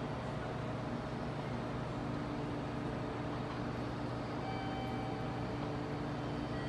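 Steady low hum of a railway station platform, with a few faint whining tones coming and going, as an 813 series electric train draws away into the distance.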